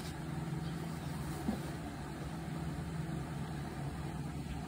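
Steady low outdoor background hum, engine-like, as from distant motor traffic, with one brief faint sound about a second and a half in.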